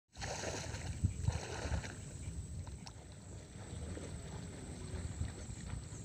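Water sloshing and splashing as someone wades through a shallow flooded field, with irregular low thuds that are heaviest in the first two seconds.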